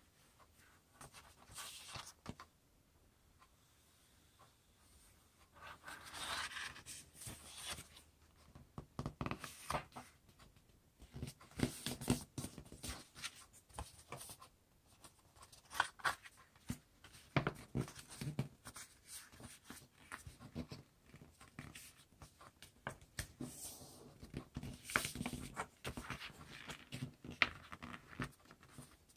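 A sheet of paper being folded and creased by hand: irregular rustling, sliding and crisp creasing strokes, with a quieter pause a few seconds in.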